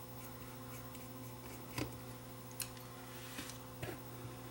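About four light, scattered clicks of a small screwdriver working on the little switch circuit board of an opened Sony Walkman WM10 cassette player, over a steady low hum.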